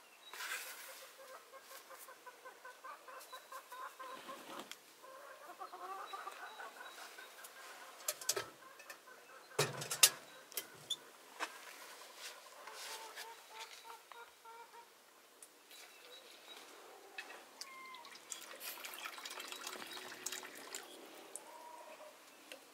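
Chickens clucking on and off, with scattered clicks and clatter of handling; a single sharp knock about ten seconds in is the loudest sound.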